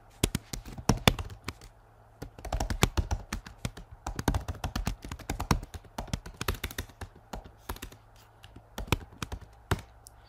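Typing on a computer keyboard: quick, irregular runs of key clicks, with short pauses about two seconds in and again near eight seconds.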